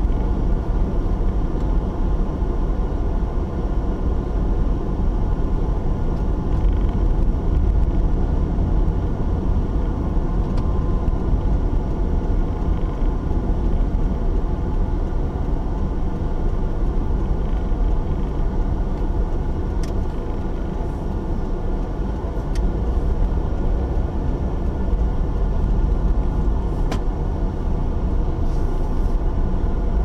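A car's steady low driving rumble of engine and road noise, heard from inside the cabin, with a few faint clicks about two-thirds of the way through.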